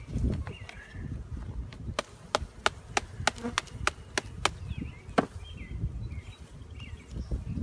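A quick run of sharp wooden knocks, about three a second for a couple of seconds, then one more knock after a short pause.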